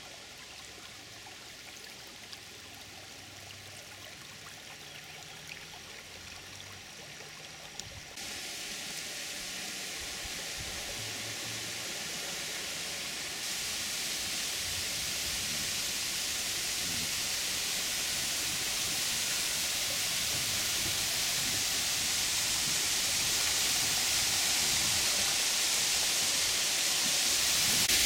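Rushing water of a small waterfall over rock ledges into a pool: faint at first, then growing steadily louder, loudest near the end.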